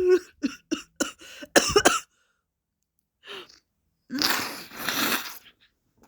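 A woman crying: a falling wail trails off at the start, then comes a quick run of short sobbing gasps. After a pause there is a long, ragged, noisy breath.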